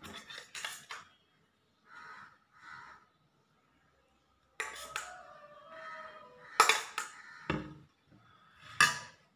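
A metal spoon clinking and scraping against a stainless steel serving bowl while chutney is scooped out: a few sharp metallic clinks, the loudest a little past the middle, with short rings between.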